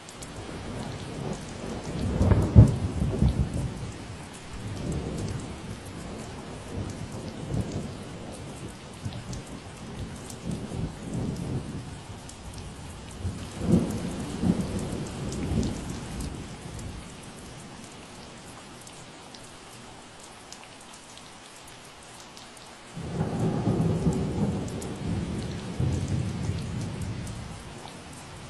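Steady rain falling, with rolling thunder rumbling low three times: a strong peal about two seconds in, another around fourteen seconds, and a longer rumble from about twenty-three seconds that fades toward the end.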